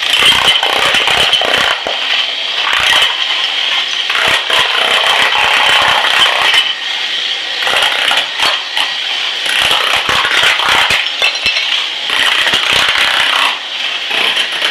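Old ceramic floor tile being chipped up with a power tool, a continuous rattling racket with the clinking and clatter of breaking tile pieces.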